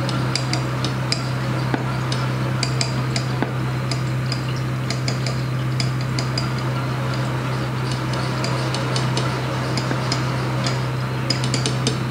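Glass conical flask clinking lightly as it is swirled by hand under a burette during a titration, many small irregular glassy ticks, over a steady low hum.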